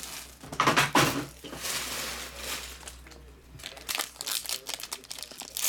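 Foil wrapper of a sealed trading-card pack crinkling as it is picked up and handled, in a run of irregular crackles.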